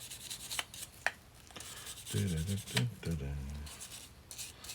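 Hand scrubbing of a greasy steel Kurt milling-machine vise part: irregular scratchy rubbing strokes with small clicks of metal being handled. A brief low hum sounds partway through.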